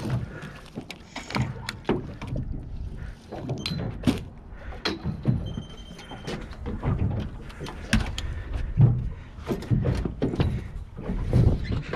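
Irregular knocks, thuds and clatter of gear being handled aboard a small fishing boat, over a low steady rumble.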